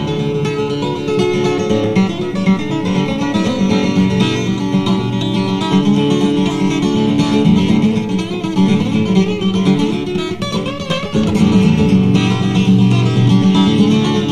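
Acoustic guitar playing an instrumental break between verses of a live folk song, strummed and picked, with no singing.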